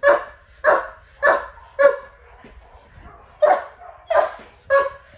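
A guard dog barking in protection training: a volley of about seven sharp, loud barks with a pause of over a second in the middle. These are guarding barks given on the "watch him" command.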